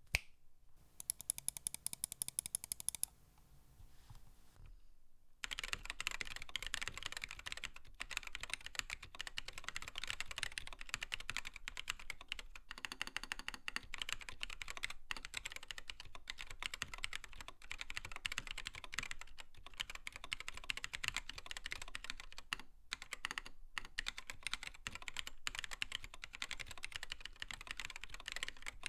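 Steady fast typing on a mechanical keyboard fitted with lubed tactile Panda-housing switches: a dense run of key clicks and bottom-outs. It is preceded by a short burst of rapid, even clicking about a second in, then a brief lull.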